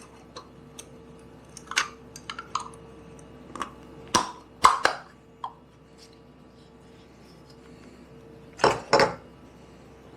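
Scattered clicks and knocks of parts being handled and fitted into an espresso machine during reassembly, the loudest about four seconds in and a close pair near the end, over a faint steady hum.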